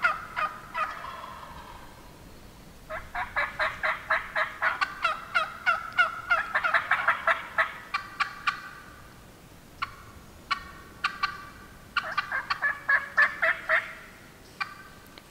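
Turkey yelping: runs of quick, evenly spaced yelps, about five a second, the longest lasting several seconds, with scattered single yelps between the runs.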